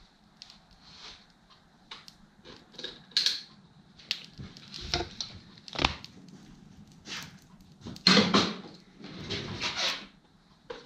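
Irregular clinks, knocks and scrapes of metal tools and parts being handled at a workbench, with a louder scraping clatter about eight seconds in.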